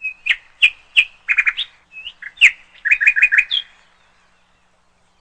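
A bird chirping: a quick run of sharp high chirps and short trills that stops about three and a half seconds in.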